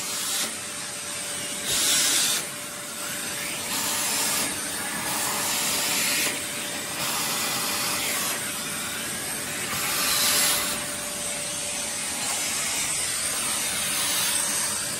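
Vacuum cleaner running steadily with a constant motor hum as its hose nozzle sucks up dust and debris from the floor, getting louder and hissier in surges about 2, 4, 6 and 10 seconds in as the nozzle is moved.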